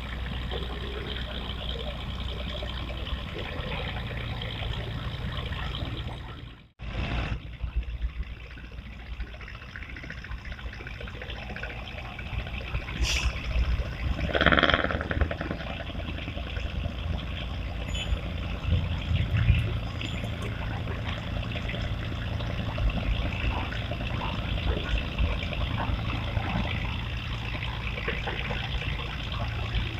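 Steady rush of flowing river water, cut off briefly by a sudden drop-out about a quarter of the way in.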